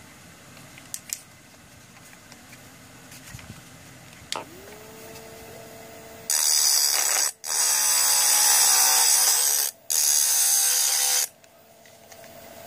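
Homemade mini grinder, driven by a small motor salvaged from a laser disc player, whines up to speed about four seconds in. About two seconds later a metal blade is pressed against its small grinding stone. A loud, harsh grinding hiss follows for about five seconds, broken twice briefly as the blade lifts off, and the motor's whine carries on after the grinding stops.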